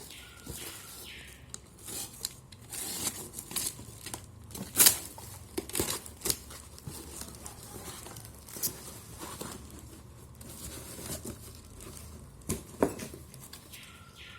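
Packaging being torn and crinkled open during an unboxing: irregular tearing and rustling, with scattered sharp clicks and knocks, the loudest about five seconds in and again near the end.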